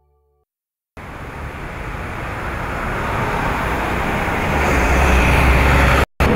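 City street traffic, with cars driving past, starting about a second in and swelling steadily. Near the end a city bus passes close by, and its low engine rumble is the loudest part.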